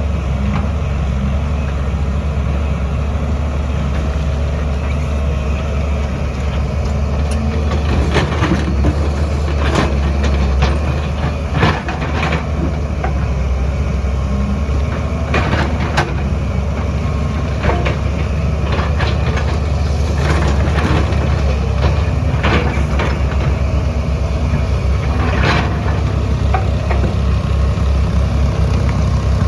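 Excavator's diesel engine running with a steady low drone, with scattered knocks and clatters of rock and metal from about eight seconds in as the machine digs.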